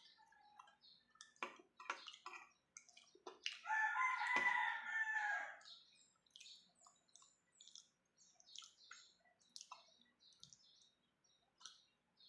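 A rooster crowing once, about three and a half seconds in, for about two seconds; it is the loudest sound. Faint short high chirps or clicks are scattered around it.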